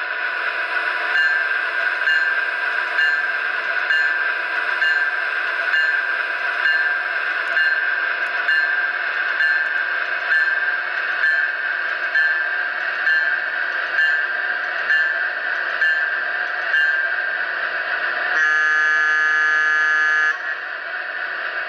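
MTH DCS sound system of an HO-scale Bi-Polar electric locomotive playing through its small onboard speaker: a steady electric-locomotive running hum with a regular click about one and a half times a second. Near the end comes a single horn blast of about two seconds.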